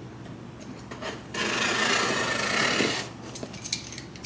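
A blade slitting the packing tape along the top of a cardboard shipping box: one continuous rasping tear, starting about a second and a half in and lasting about a second and a half, amid lighter handling of the box.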